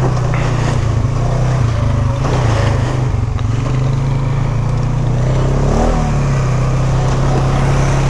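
Single-cylinder engine of a 2021 Polaris Sportsman 570 ATV running steadily on a trail ride, with a brief change in its note about six seconds in.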